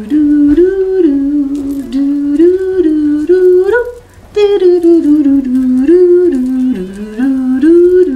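A woman's voice singing a wordless tune: a simple melody of short held notes stepping up and down, with a brief break about four seconds in.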